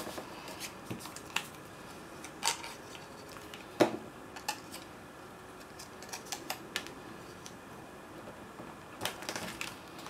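Cardstock album pages handled and straightened by hand on a tabletop: scattered light taps, clicks and paper rustles, the sharpest tap about four seconds in and a small cluster of taps near the end.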